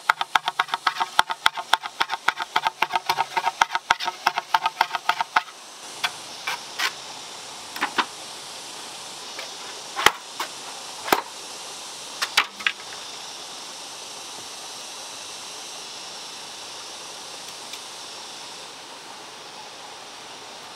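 Machete blade chopping green bamboo: a quick run of hollow knocks, about four a second, for the first five seconds. Then a few separate, louder strikes on an upright bamboo pole over a steady rush of running water, and for the last several seconds only the water is heard.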